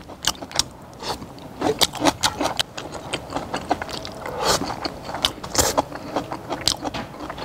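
A steak knife and metal tongs clicking and scraping against a wooden cutting board while steak is cut and eaten, with chewing. The clicks come irregularly, several a second at times.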